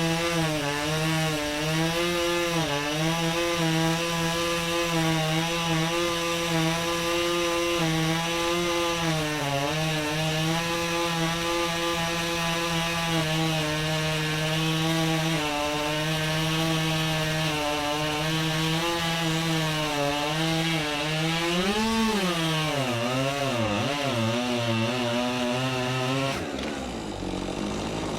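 Chainsaw running at high revs while cutting wood, its pitch wavering as the chain meets load. Near the end the revs drop sharply, then climb again.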